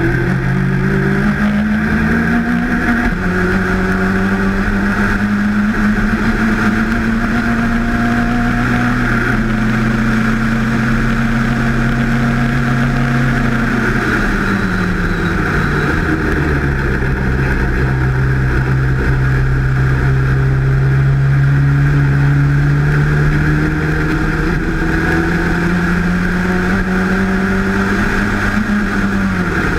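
Race car engine heard from the cockpit, running hard: its pitch climbs, drops sharply at a gear change about three seconds in, holds high, then falls away about halfway through and stays low before climbing again, with another quick dip at a shift near the end.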